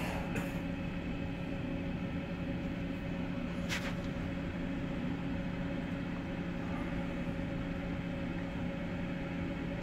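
A steady hum made of a few fixed tones, with one sharp click a little under four seconds in, the click coming from gloved hands handling the clip-lead connections.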